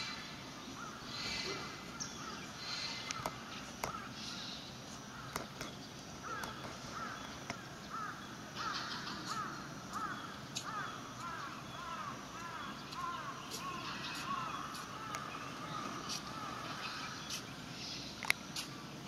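Birds calling outdoors, a long run of short arched calls repeating through the middle stretch, with scattered small splashes and clicks from water.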